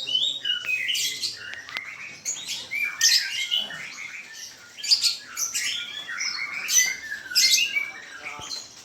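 Many caged birds chirping and whistling at once: short, overlapping calls and rising and falling whistles, one after another.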